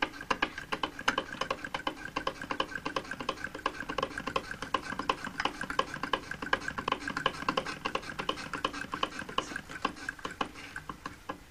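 Willcox & Gibbs single-thread chain-stitch sewing machine running steadily, a fast, even stream of mechanical clicks with a steady whirr beneath.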